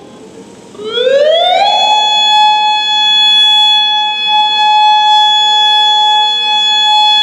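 Federal Signal Modulator 8032B electronic warning siren starting its alert signal. About a second in, the tone slides quickly up in pitch, then holds one loud, steady tone.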